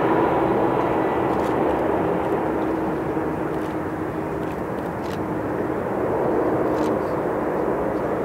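Airbus A330-203 airliner's twin turbofan engines on short final approach, flaring just above the runway: a continuous jet roar with a steady tone running through it, easing slightly and then swelling a little near the end.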